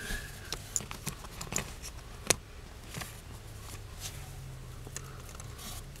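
Small clicks and taps of a plastic blade fuse being handled and set down on a pair of metal pliers, with one sharp click a little over two seconds in.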